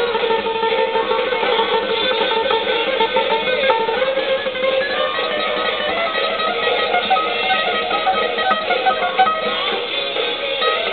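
Guitar playing a solo: a held note early on, then quicker runs of single notes.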